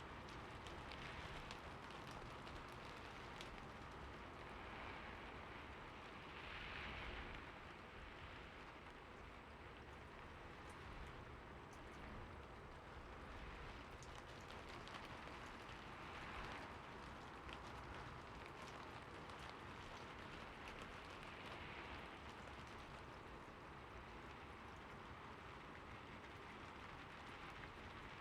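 Heavy rain falling steadily: a dense, even hiss of drops with a few gentle swells and scattered faint drip ticks.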